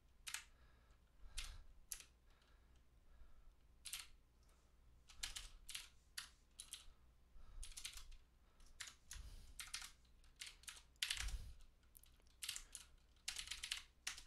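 Computer keyboard typing: irregular keystrokes, some single taps and some quick runs of several keys.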